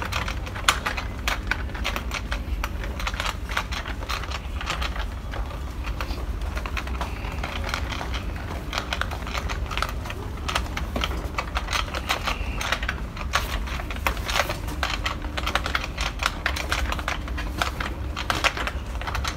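Shopping trolley rattling as it is pushed along, a really noisy, fast run of clicks and clatter, with a low rumble underneath.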